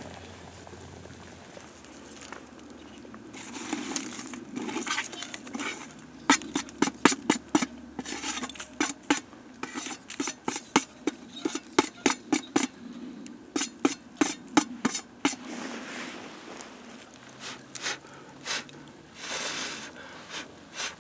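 A wooden stick knocking and scraping coals and ash off the thin metal lid of a titanium Dutch oven: a run of sharp taps and clinks, a few a second, lasting several seconds, then softer scraping and a short brushing rush near the end.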